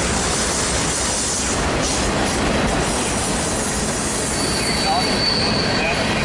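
Freight cars of a mixed freight train rolling past close by: a steady noise of steel wheels running on the rails, with a thin high wheel squeal lasting about a second near the end.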